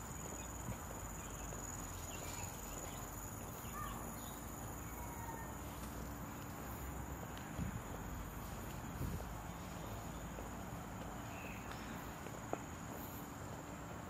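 Outdoor garden ambience: insects keep up a steady high-pitched drone over low background noise, with a few faint, short bird chirps and a single sharp click near the end.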